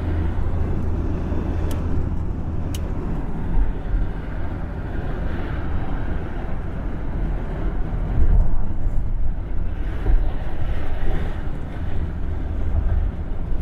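Steady engine and road drone heard inside the cabin of a 1970 Buick Estate Wagon cruising on the highway, its 455 V8 breathing through a single exhaust. Two faint clicks sound about two and three seconds in.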